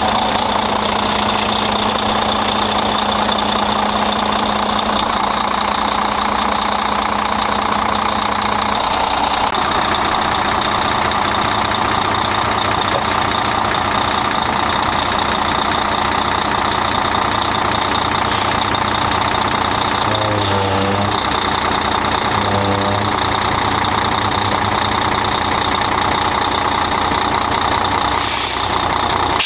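Semi truck's diesel engine idling steadily, run after a fresh oil and filter change to check for leaks at the oil filters and drain plug. A short hiss near the end.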